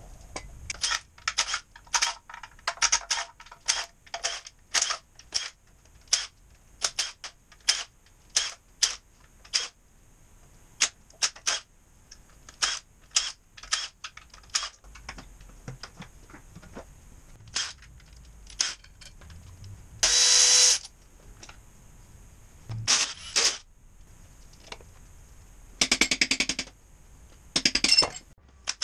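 Cordless impact wrench loosening bolts on a 4BD2T diesel engine block during teardown. It fires in many short bursts, with a longer run about two-thirds of the way through and two hammering, rattling bursts near the end.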